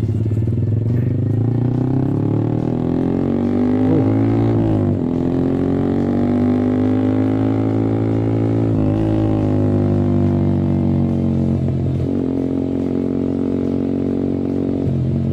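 Yamaha R15 V3's 155 cc single-cylinder engine, breathing through an R9 racing exhaust, pulling up through the gears. The pitch climbs, then drops sharply at each upshift, three times: about five, nine and twelve seconds in.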